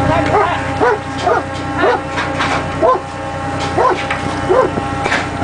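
Steady drone of a fishing vessel's engine, with a quick run of short rising-and-falling calls, about two a second, over it.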